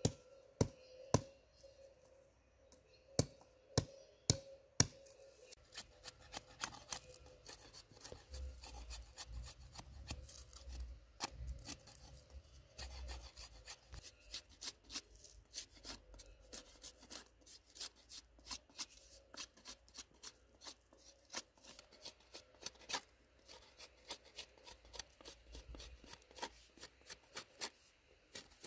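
A small hatchet chopping sticks with a handful of sharp strikes, then a knife whittling a wooden stick in quick, repeated scraping strokes, several a second, shaving off thin strips of wood.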